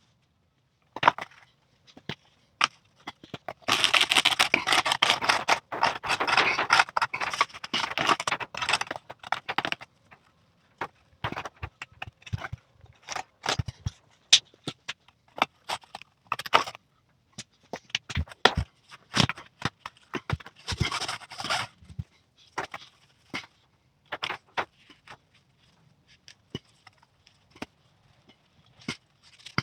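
Hand-work noises on a car's convertible-top headliner: scraping and rustling with many sharp clicks and taps. A dense stretch of scraping starts about four seconds in and lasts some six seconds, and a shorter one comes about twenty seconds in.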